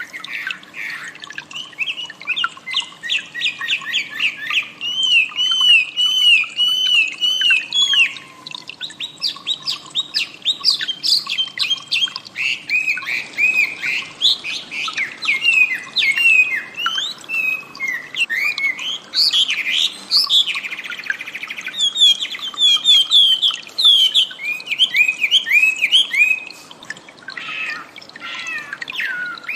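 A wambi songbird singing a long, fast, varied song of quick repeated chirps and swooping whistled notes, almost without pause.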